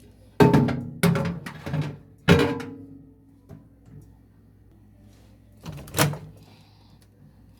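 Sparse music: a handful of struck notes, each sharp at the start and ringing out, with a quiet stretch in between.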